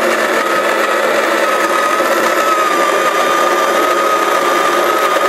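Saeco burr coffee grinder's motor running steadily with a high whine as it grinds coffee beans.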